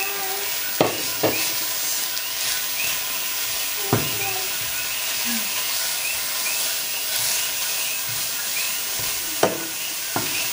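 Raw ground beef sizzling in hot coconut oil in a pot while it is broken up and stirred with a slotted spatula. The spatula knocks sharply against the pot a few times.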